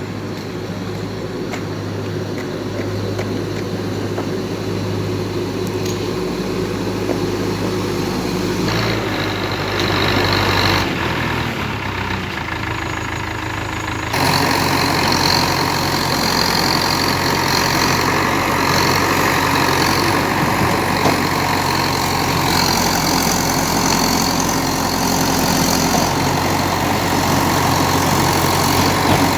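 Heavy diesel engine of earth-moving construction machinery running steadily. About fourteen seconds in the sound suddenly gets louder, and high whines come and go over the engine noise.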